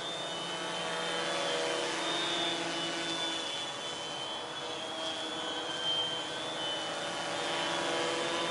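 Align M480L multirotor drone in flight, its electric motors and propellers giving a steady buzzing hum whose pitch drifts slightly as it manoeuvres.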